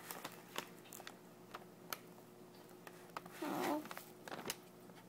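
Faint scattered clicks and handling noise from a hand-held FM radio kit circuit board being moved about while hunting for a station, over a faint steady hum, with a brief louder rustle about three and a half seconds in.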